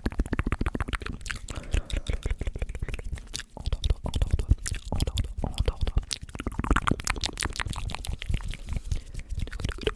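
Close-miked ASMR mouth sounds: rapid wet clicks, smacks and tongue pops in a dense, irregular stream, with a few short squelchy glides about two-thirds of the way through.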